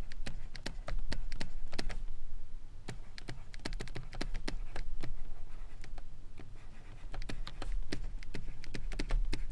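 Stylus writing on a tablet: a quick, irregular run of small taps and scratches as letters are written stroke by stroke.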